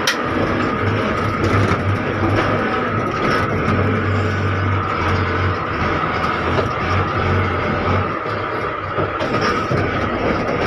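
Diesel engine of heavy earthmoving machinery running steadily, with a low drone that pulses on and off and fades about eight seconds in.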